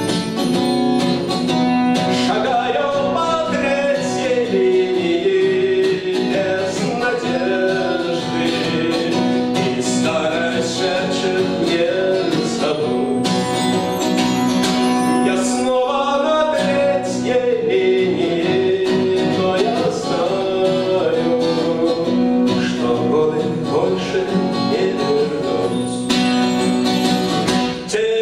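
Live acoustic song: a male voice singing to a strummed acoustic guitar, with a bayan (button accordion) playing chords and fills.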